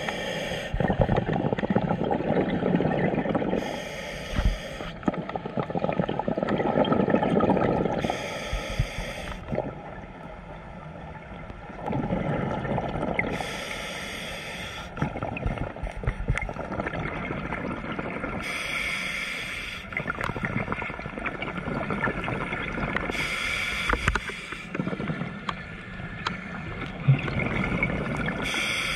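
Scuba breathing through a regulator, heard underwater: a breath cycle about every five seconds, with a short hiss on each breath and a rumble of bubbles between.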